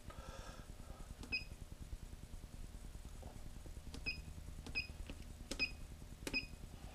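Milling machine's digital readout (DRO) keypad beeping with button presses, five short beeps, each with a click, spread over the last two-thirds, as the axes are zeroed.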